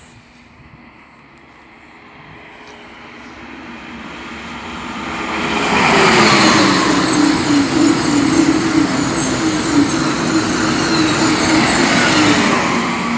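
High-speed train passing through the station at speed. A rush of wheel and air noise builds over several seconds to a loud, steady roar with a hum, and its whine drops in pitch as the train goes by.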